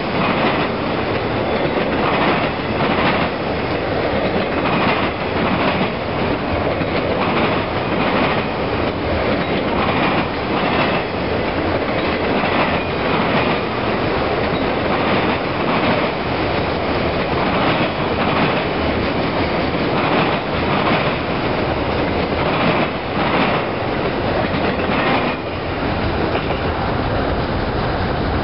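Freight train of autorack cars rolling past at a grade crossing: a steady rail rumble with the wheels clicking irregularly over the rail joints. The end of the train passes near the end.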